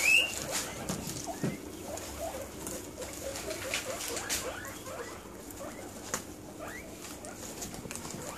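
Guinea pigs eating cos lettuce: a run of small crisp chewing and crunching clicks with rustling hay, and a few short squeaks. A rising wheek sounds right at the start.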